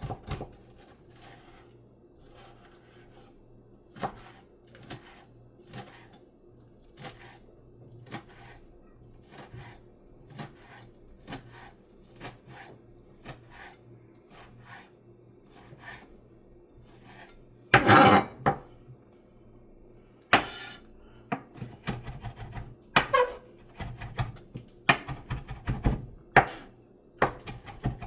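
Chef's knife cutting chives on a cutting board: irregular knocks of the blade on the board. A louder clatter comes about eighteen seconds in, and the knocks come faster and louder near the end.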